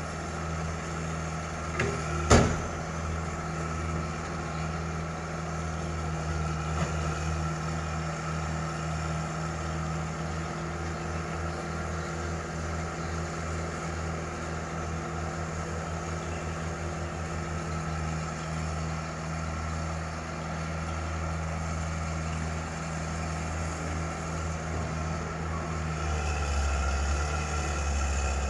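Diesel excavator engine running steadily, heard from a distance, with one sharp knock about two seconds in. The engine hum grows louder near the end.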